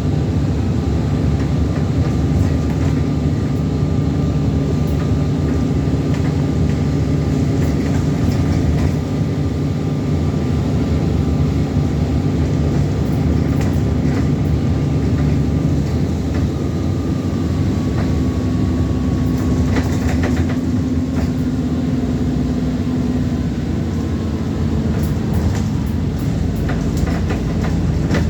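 Alexander Dennis Enviro400 double-decker bus on a Trident chassis, heard on board while under way: the engine runs with a steady high whine over it. The engine note changes about two-thirds of the way through, and rattles and knocks come near the end.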